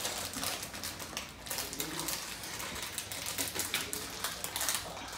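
Plastic candy wrapper being opened and crinkled by hand, a dense run of crackles.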